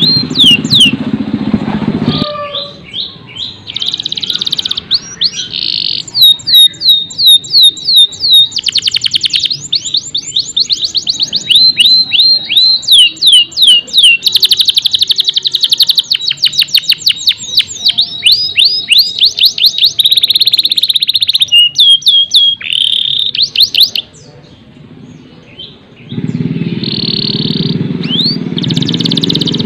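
Domestic canary singing a long song of rapid trills and runs of quick, high, falling notes, with a brief pause near the end. A low background sound sits under the song in the first couple of seconds and again over the last few seconds.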